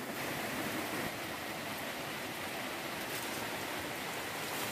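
Steady rain falling, an even hiss with no separate drops or knocks standing out.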